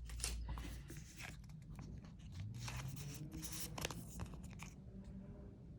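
Faint rustling and light clicks of trading cards and a plastic card sleeve being handled, as a card is slid into its sleeve.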